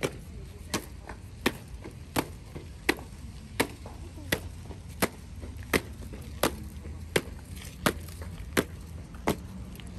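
Military honour guard marching in step, their boots striking the stone paving in sharp, regular footfalls about every 0.7 seconds.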